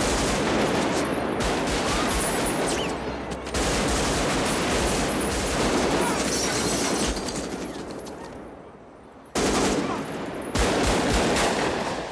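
Automatic rifle fire in long, dense bursts, fading about eight seconds in, then two more bursts about a second apart.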